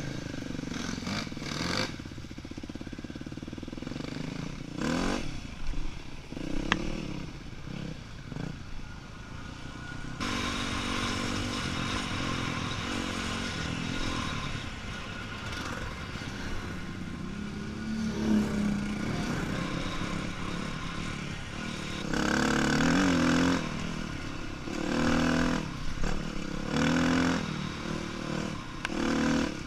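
Yamaha WR250F dirt bike's single-cylinder four-stroke engine revving up and down with the throttle, its pitch rising and falling in short bursts, the loudest of them in the last third.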